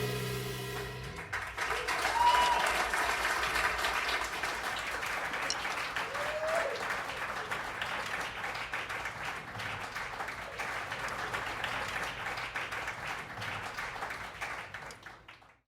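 The band's last chord rings out and stops about a second in, then a concert audience applauds, with a couple of brief cries from the crowd. The applause fades out near the end.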